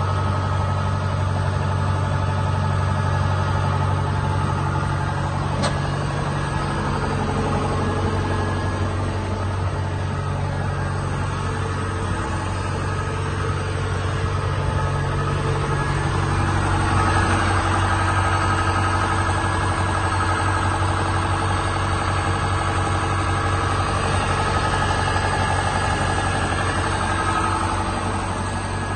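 Kubota DC-70 combine harvester's diesel engine running steadily.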